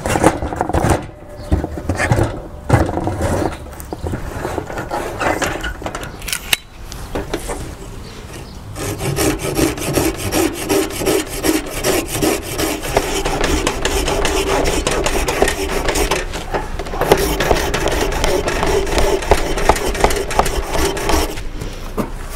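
Small hand saw cutting through a freshly felled, green hazel branch. A few knocks come first, then steady back-and-forth sawing strokes from about nine seconds in, with a brief pause partway, until the end comes off near the end.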